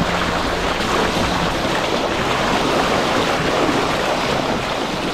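Water rushing and splashing along a sailing yacht's hull as the bow cuts through the sea under sail, a steady wash with wind on the microphone.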